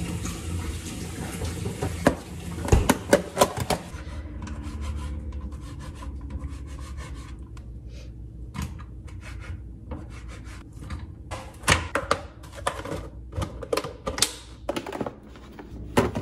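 Kitchen handling sounds: a string of short clicks, knocks and clatter from a fridge door, knife, plastic cutting board and pans, with a knife scraping food off the cutting board into a pan. The clicks come in two busy runs, one in the first few seconds and another near the end.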